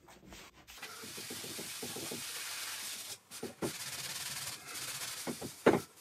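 A cloth pad rubbing wax paste finish into an MDF surface, a steady scrubbing hiss in two spells with a brief pause between them. A short knock near the end is the loudest sound.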